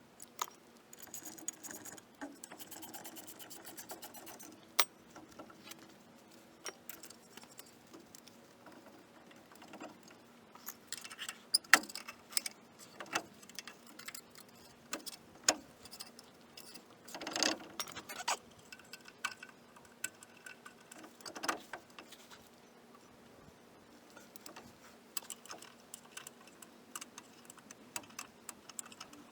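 Metal hand tools clicking and clinking in short runs, with a few sharper knocks. The runs of rapid even clicks sound like a hand ratchet turning bolts.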